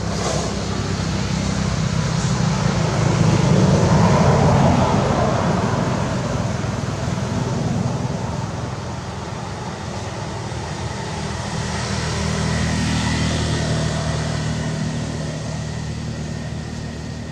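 Background road traffic: a steady engine hum with passing-vehicle noise that swells twice, first about four seconds in and again near thirteen seconds.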